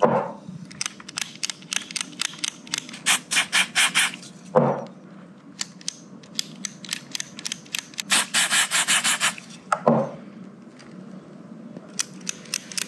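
Guitar volume and tone potentiometers being cleaned with contact-cleaner spray and worked back and forth: three bouts of rapid, short scratchy hissing strokes. The cleaning is for dirty pots that crackle when turned.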